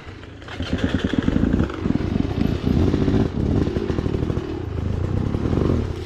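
Enduro dirt bike engine revving hard and unevenly, swelling up about half a second in.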